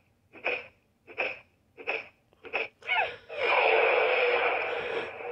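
A Power Rangers Cosmic Fury toy morpher's small built-in speaker playing electronic sound effects as its button is held. A run of short pulses about every 0.7 s gives way, about three seconds in, to a rising sweep and a longer, louder noisy blast.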